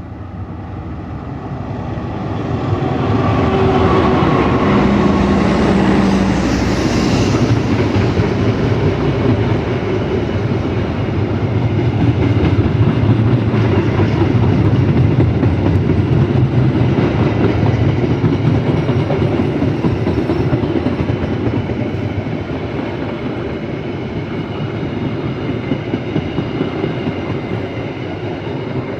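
A locomotive-hauled train passing close by: the sound builds as the locomotive draws level, with a low engine tone about four to seven seconds in. Then the cars roll past steadily, wheels clattering over the rail joints.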